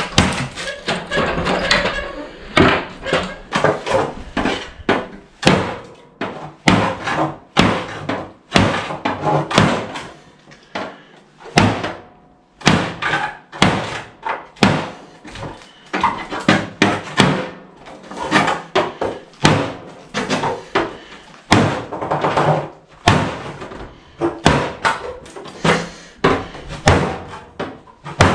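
KA-BAR 1245 tanto knife stabbed over and over into a car door's sheet-metal skin: a long run of sharp metallic thuds and punctures, about one or two blows a second, unevenly spaced.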